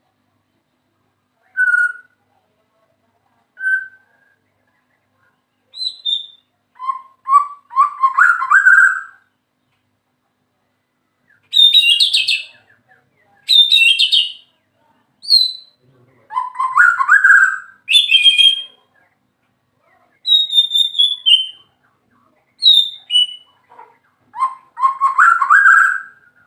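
White-rumped shama singing: short whistled phrases separated by clean gaps of silence, some low and full, others high, sharp and sliding.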